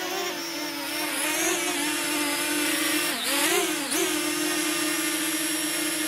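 Parrot Anafi quadcopter's propellers buzzing as it hovers close by, a steady whining tone that dips and rises again in pitch about three seconds in as the motors change speed.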